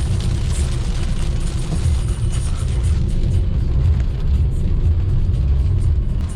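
Maruti Suzuki Ciaz car driving in heavy rain: a deep, steady road and wind rumble under the hiss of rain and tyre spray. The hiss thins out about three seconds in.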